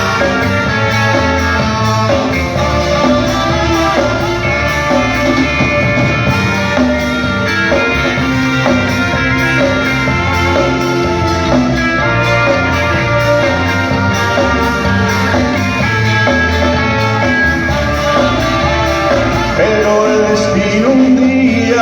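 Live band playing a slow romantic song with guitar and bass through a PA system, in an instrumental passage between the sung lines.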